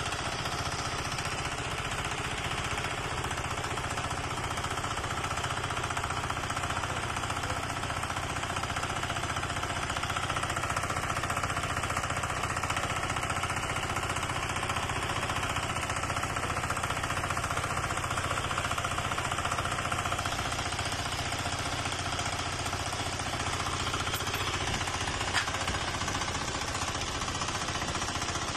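An engine running steadily at an even speed with a rapid, unbroken beat.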